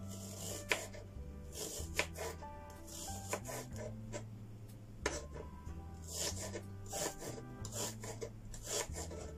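Kitchen knife slicing shallots on a wooden cutting board: irregular sharp knocks and scraping strokes of the blade on the wood. Background music with a steady low bass line plays underneath.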